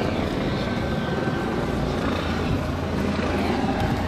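A steady low motor rumble.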